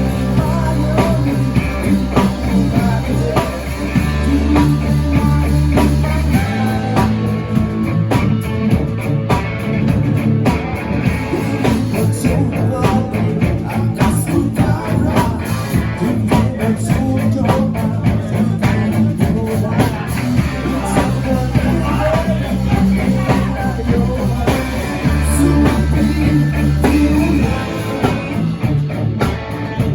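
Live rock band playing a song at full volume during a sound check: electric guitar, bass and a drum kit, with the bass chords changing every few seconds.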